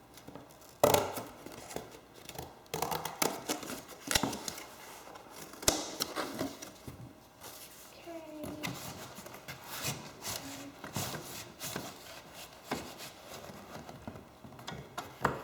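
Hands working a piece of material and cutting it with scissors: irregular snips, rustles and knocks.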